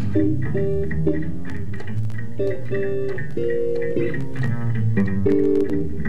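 Instrumental opening theme music led by bass and guitar over a steady beat.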